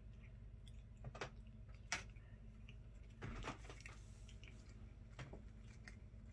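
Tabby cat chewing and biting at the string of a wand toy: faint, scattered soft clicks and crunches, with a few sharper ones and a short cluster near the middle, over a low steady hum.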